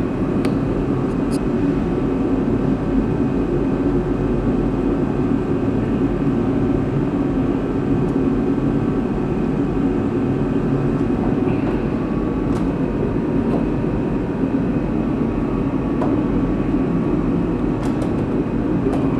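Steady machine drone throughout, with a few faint light clicks.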